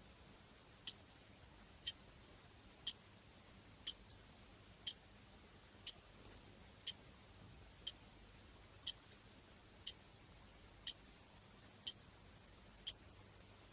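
Clock ticking steadily, one sharp, light tick a second, evenly spaced.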